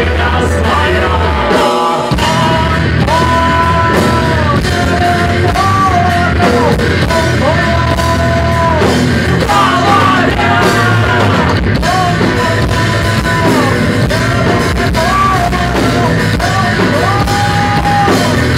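Live rock band playing loudly, a melody of long held notes that slide between pitches over a steady beat.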